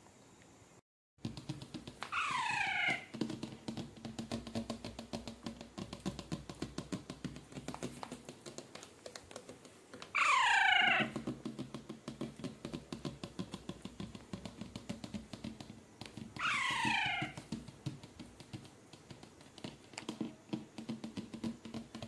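Baby Alexandrine parakeet giving three loud squawking calls, each about a second long and falling in pitch, spaced several seconds apart.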